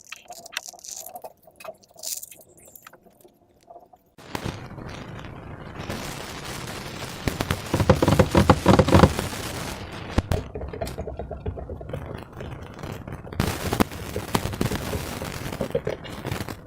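Slime being worked by hand, crackling and squelching with many small pops. It starts suddenly about four seconds in after a few faint clicks, and is loudest a little after the middle.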